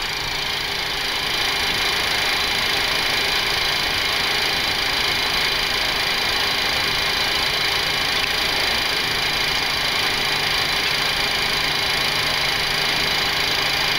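Boeing 737-800 flight deck noise while taxiing on idle engines: a steady hum and whine with several fixed tones, unchanging throughout.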